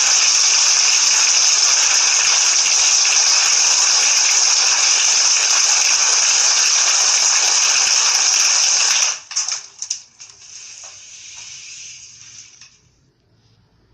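Loud, steady rush of compressed air, as from the air-compressor blowgun feeding a soda-bottle airsoft gun. It cuts off suddenly about nine seconds in, then gives a few sputters and rattles and a fainter hiss that dies away.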